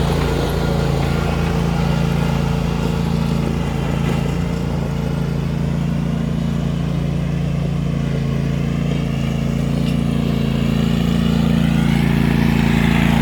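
A vehicle engine running steadily at an unchanging speed, a low even drone with no revving.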